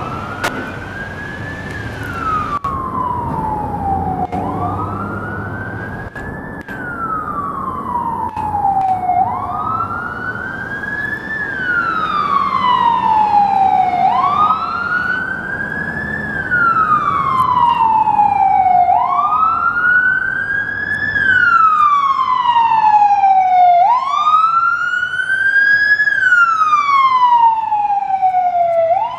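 Ambulance siren on a slow wail: the pitch climbs quickly, then falls slowly, about every five seconds, six times. It grows louder as the ambulance approaches and passes.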